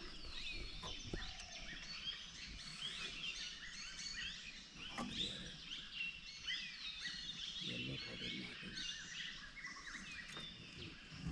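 Several forest birds chirping and calling at once, a dense chorus of short high chirps and quick little glides.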